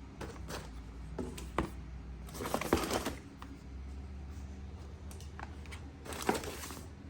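Paper wrapping crinkling and rustling as a package is unwrapped by hand, in several short irregular bursts, loudest about two and a half seconds in, with a sharp click or tap just before.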